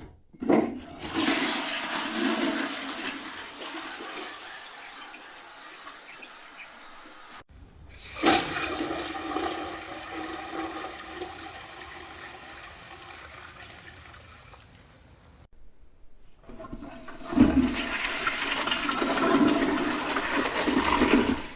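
Three separate toilet flushes one after another. Each starts suddenly with a loud rush of swirling water. The first two slowly fade and then cut off abruptly. The third stays loud until it stops near the end.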